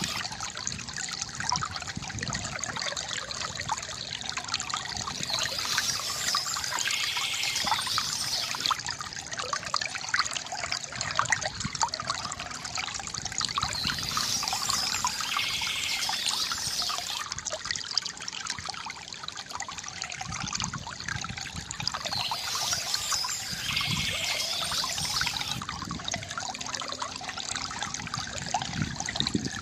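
Water trickling and gurgling from a bamboo fountain, steady and unbroken. A brighter, higher splash recurs about every eight seconds.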